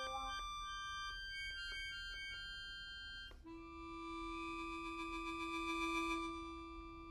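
Trumpet and accordion holding long, steady notes. About three and a half seconds in they give way to a single lower held note that swells and then fades.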